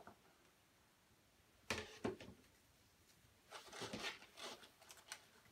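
Faint handling noises: two light knocks a little under two seconds in, then about a second of rustling, as a prize is set aside.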